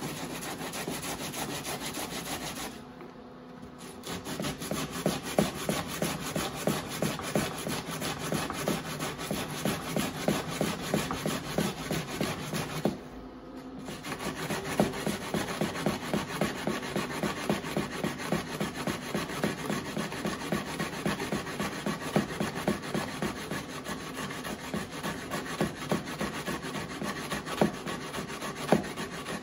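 Raw potatoes being grated by hand on a metal grater, in quick, even rasping strokes about two a second, with two brief pauses.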